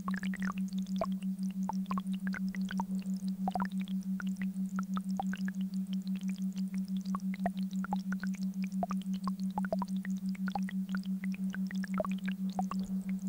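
Binaural-beat tone: a steady low hum that pulses evenly a few times a second, with scattered short, high-pitched blips sprinkled over it.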